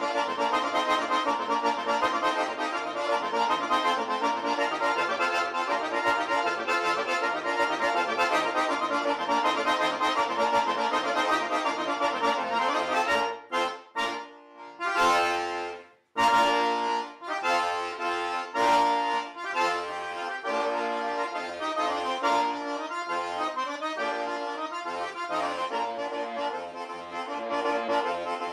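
Background music led by an accordion playing a tune. About halfway through it breaks off briefly, then starts up again.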